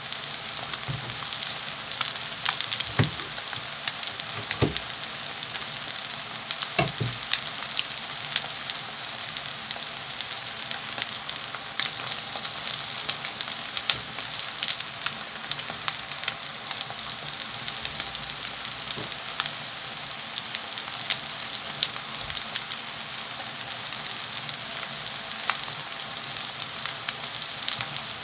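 Soft tofu and zucchini pancake batter frying in oil in a pan: a steady sizzle full of small crackles, with a few dull knocks in the first seven seconds.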